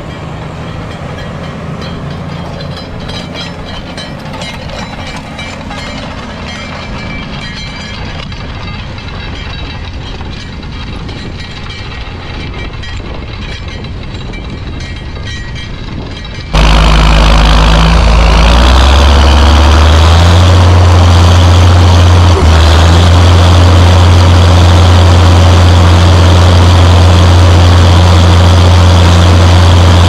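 John Deere 6830 tractor's six-cylinder diesel engine running steadily under load while pulling a four-furrow reversible plough. About halfway through it suddenly becomes much louder and closer, heard from on the tractor itself, and the engine note rises over a couple of seconds, then holds steady.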